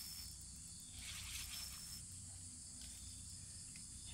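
Steady high-pitched insect chorus, with a few faint hissy bursts about a second long from an ultralight spinning reel as a hooked hampala barb is played.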